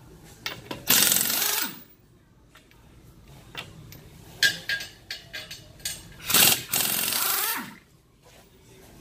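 Impact wrench hammering on wheel lug nuts in two bursts of about a second, each ending with the motor spinning down, as the nuts are loosened to take off the tire. Light metal clanks between the bursts.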